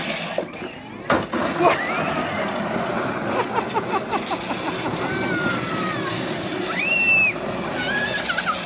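Electric ride-on toy car driving on concrete, its motor and hard plastic wheels making a steady rumbling run while it rears up in wheelies. In the second half come a few high squeals that rise and fall, from the laughing child.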